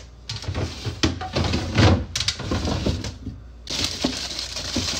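Rummaging in an open refrigerator: jars and bottles knocked and shifted on the shelves, with rustling, then a steady hiss from about three and a half seconds in.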